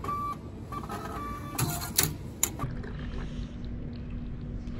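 Meal-ticket vending machine giving a few short beeps as the selection is made, then clacking and printing as it issues the ticket.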